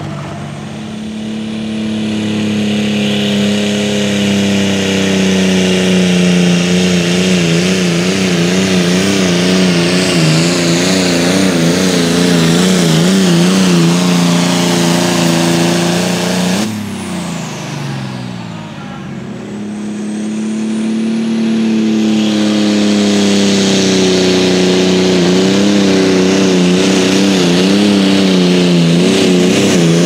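John Deere pro farm pulling tractor's turbocharged diesel engine running flat out under load as it drags the sled, its pitch wavering quickly. An abrupt cut about halfway through leads into another run of the same engine under full load.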